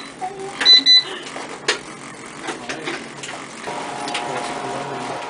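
An electronic timer beeps twice in quick succession about a second in, marking the end of a timed stretch. A small electric motor starts up a little past halfway and runs with a steady hum.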